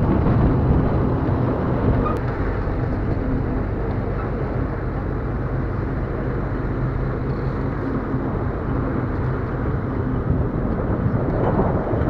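An engine running steadily at an even pitch, under a haze of travel and wind noise.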